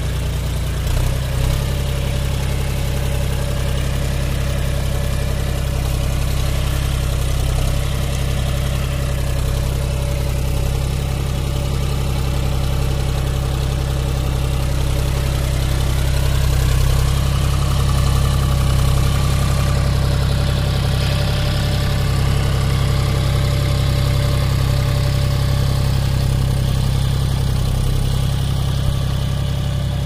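John Deere 5105 tractor's three-cylinder diesel engine running steadily under load, pulling a two-bottom reversible mouldboard plough through the soil.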